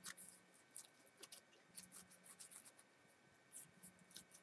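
Near silence with faint, scattered soft clicks and rustles of hands kneading a sticky homemade bread-and-glue craft dough.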